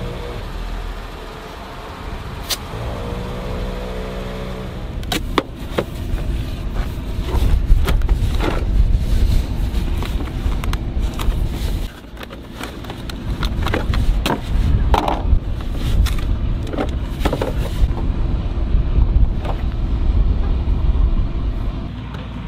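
Jeep being driven over a rough track, its engine and tyres giving a steady low rumble. After a few seconds come frequent irregular knocks and rattles as it bounces over the ground.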